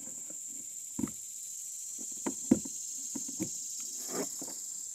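Several sharp plastic clicks and knocks as a trolling-motor power plug is handled in its waterproof deck socket on a kayak, the loudest about halfway through. A steady high-pitched insect drone continues underneath.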